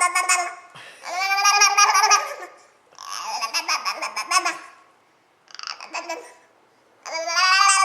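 A baby making playful babbling, laugh-like vocal sounds in a high voice: about four drawn-out utterances, each a second or two long, with short breaths between.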